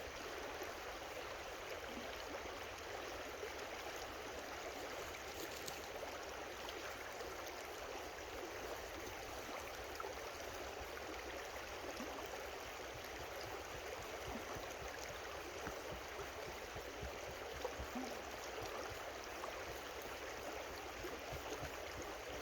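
A small creek running, a steady, even rush of flowing water.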